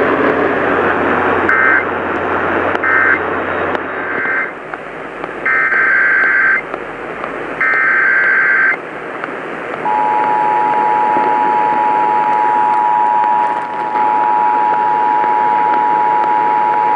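Emergency Alert System tones received over a hissing radio. Three short bursts of warbling data tones (the end-of-message code) are followed by two longer data bursts. About ten seconds in, the steady two-tone EAS attention signal begins and continues.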